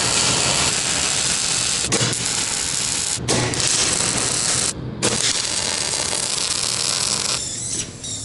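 Electric arc welding on a steel tube frame: the arc hisses steadily, breaks off briefly about halfway through and starts again, then stops shortly before the end.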